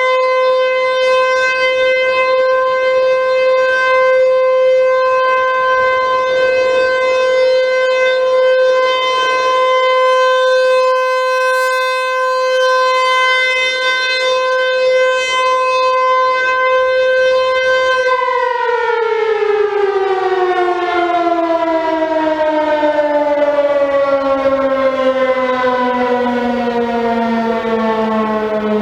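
ACA/ASC T-135 tornado siren sounding during a test: one loud, steady tone, which about two-thirds of the way through begins to wind down, its pitch falling steadily as the rotor slows.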